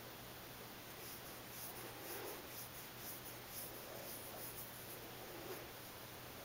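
Faint scratchy rustling of a hand petting fur, in a quick run of soft strokes for a few seconds, over a steady low electrical hum.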